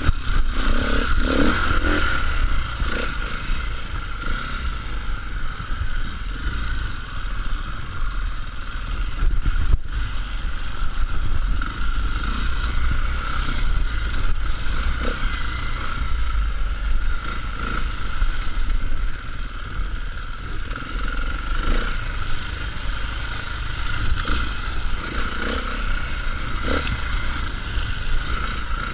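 Enduro motorcycle engine running steadily as the bike rides a rough dirt trail through brush, heard from a camera mounted on the bike or rider, with heavy low rumble and a few knocks from the rough ground.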